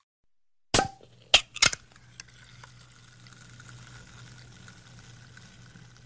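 Pull-tab of an aluminium carbonated drink can being opened: a sharp click about a second in as the tab cracks the seal, two or three more clicks, then the drink fizzing steadily as the carbonation escapes.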